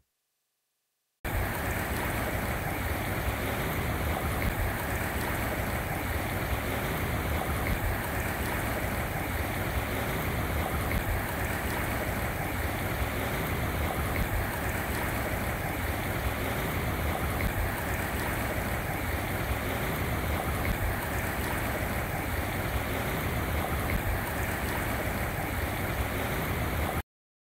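Meltwater stream in spring thaw, running with a steady rush of water and a low rumble underneath. It starts about a second in and cuts off abruptly near the end.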